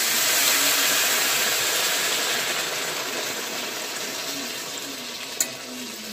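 Water poured in a steady stream into a hot iron kadai of fried potatoes and flat beans, splashing into the pan; the rush is loudest at first and fades gradually. One small click about five seconds in.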